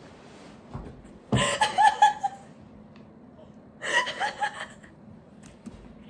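A woman laughing in two short bursts, about a second in and again about four seconds in.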